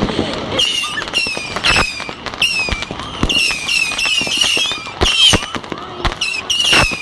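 Fireworks and firecrackers going off: many sharp bangs at irregular intervals. Alongside them, from about half a second in, short high falling whistles repeat two or three times a second.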